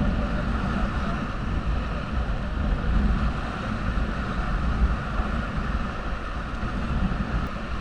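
Rushing river water around a whitewater raft, a steady noisy wash, with wind buffeting the microphone.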